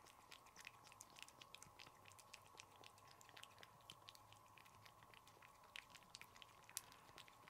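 Tabby cat licking a paste treat from a squeeze tube: soft, irregular wet tongue clicks, several a second.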